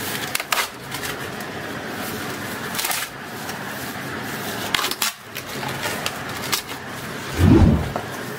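Corrugated cardboard shipping box being opened by hand: flaps pulled back and rubbing, with scattered crackles and sharp clicks over a steady hiss, and a heavier dull thump near the end.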